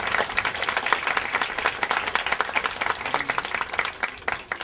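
Audience applauding: many hands clapping together, thinning out near the end.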